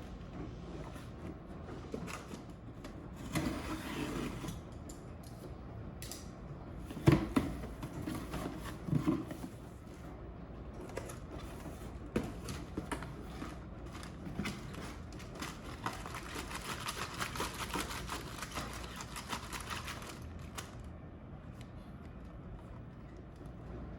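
Packaging being handled and unpacked: rustling with scattered knocks and clicks, the loudest knock about seven seconds in.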